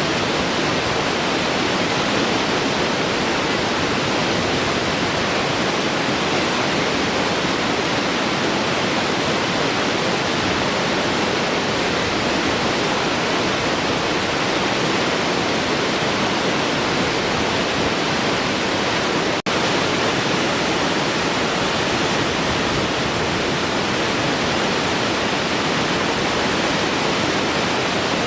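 Large waterfall pouring steadily, a dense unbroken rush of falling water. It cuts out for an instant about two-thirds of the way through.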